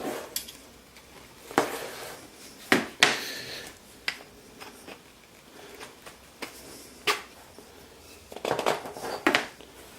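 Small Baltic birch plywood parts knocking and clicking as they are handled and fitted together. There are separate sharp knocks a second or two apart, then a quick run of them near the end.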